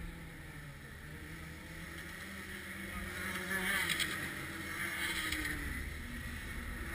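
Racing kart engines passing in the distance, the sound swelling about three seconds in and easing again after about five, over low wind rumble on the microphone.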